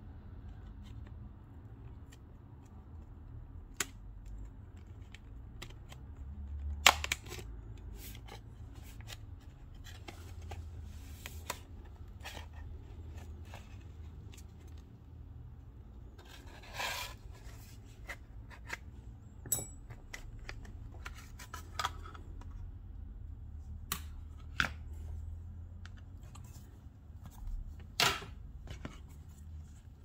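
A metal pry tool working around the edge of a Samsung Galaxy Tab A 10.1's frame to prise a section loose. There are scattered sharp clicks and a few short crackling scrapes, three of them louder than the rest, over a faint low hum.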